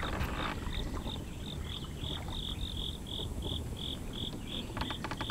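An insect chirping in an even series of short, high chirps, about three a second, loudest midway, over low outdoor background noise. A few sharp clicks come near the end.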